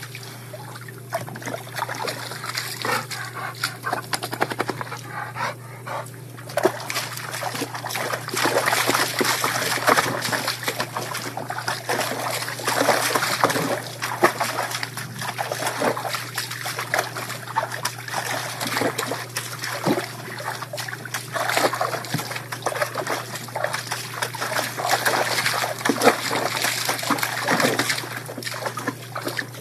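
A dog pawing and dunking its head in a plastic tub of water: repeated irregular splashes and sloshing over the steady trickle of a garden hose running into the tub.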